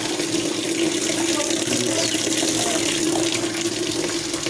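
Water running into a Union Air top-load washing machine's tub through its inlet valve as the machine fills to its lowest water level: a steady rush of water, with a steady low hum beneath it.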